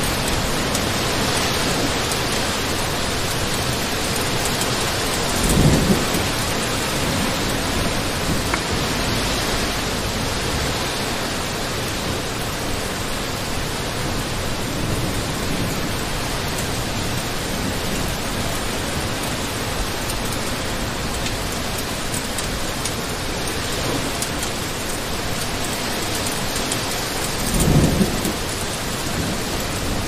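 Heavy rain falling as a steady, dense hiss. Two brief low thumps stand out, about six seconds in and again near the end.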